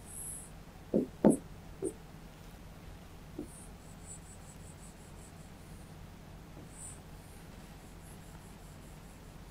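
A pen drawing lines on a writing board, with short high squeaky strokes. Three short low knocks a second or so in, the loudest sounds here, and a smaller one later, over a faint steady hum.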